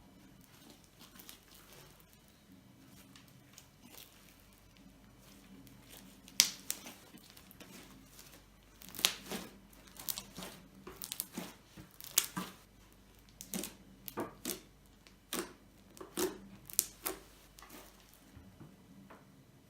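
Fluffy slime being kneaded and stretched by hand, giving sharp pops and crackles at irregular intervals from about six seconds in.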